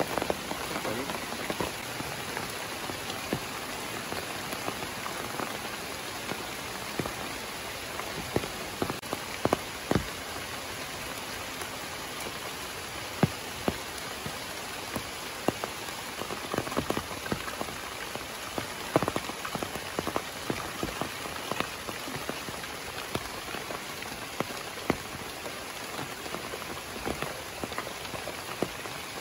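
Heavy rain falling steadily, with frequent irregular sharp taps of drops landing close by.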